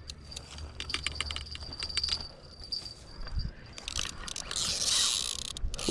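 Irregular light clicks and rattles of fishing reel and tackle being handled, with a faint steady high whine through the first half and a short hiss near the end.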